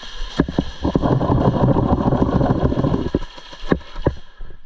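Airsoft electric gun firing a long full-auto burst of about two seconds, a rapid motor-driven rattle, with a few single sharp cracks before and after it.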